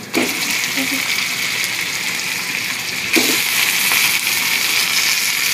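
Sliced raw pork going into a hot wok of sautéed onion, tomato and garlic and sizzling in the oil. The sizzle starts suddenly as the meat goes in and gets louder about three seconds in.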